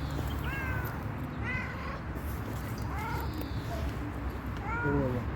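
A stray cat meowing four times in short, bending meows spaced a second or more apart, asking for food.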